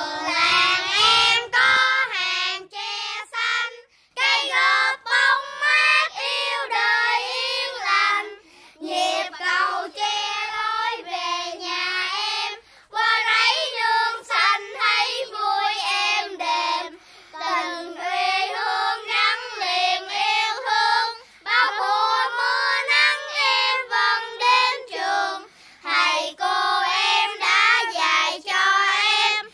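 A child singing a song in a high voice, in continuous phrases.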